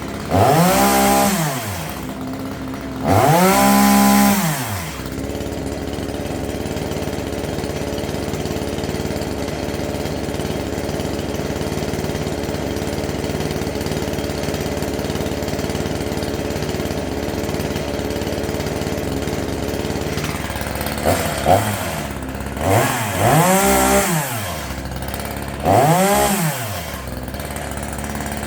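Small two-stroke gas chainsaw idling, revved up and back down in short bursts: twice in the first few seconds and about three times near the end.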